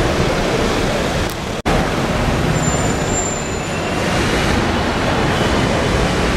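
Steady road traffic noise of cars, taxis and city buses on a busy city street, dropping out for an instant about one and a half seconds in.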